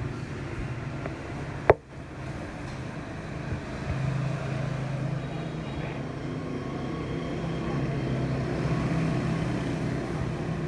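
Steady low running noise of a vehicle, with a single sharp click a little under two seconds in.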